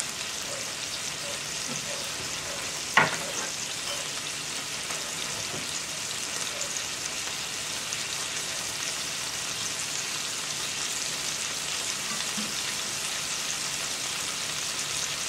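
Cheeseburger patties with melted cheese and onions sizzling steadily in cast iron skillets on high heat. One sharp click about three seconds in.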